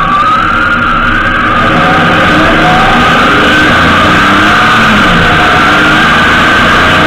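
Honda GL1800 Gold Wing being ridden at road speed, heard from a camera on the bike: steady loud wind and road rush with the engine underneath, and a high whine that drifts slowly up and down in pitch.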